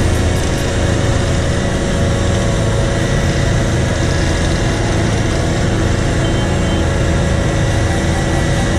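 Caterpillar AP655F asphalt paver's diesel engine running steadily while the machine paves.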